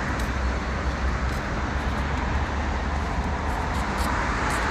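Strong wind buffeting the microphone: a steady, low rumbling roar with an even hiss above it.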